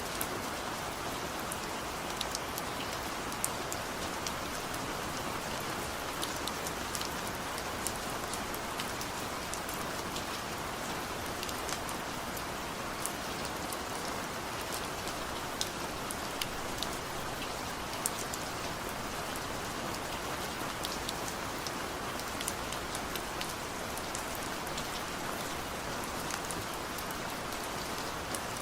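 Steady rainfall, a continuous hiss with many individual drops ticking against a surface.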